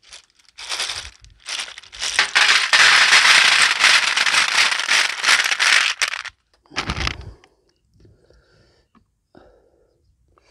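Small boiled snails tipped from a bamboo basket onto a tray, their shells clattering and rattling against each other and the tray for about six seconds. The clatter is followed by a single dull thump, then only faint small handling sounds.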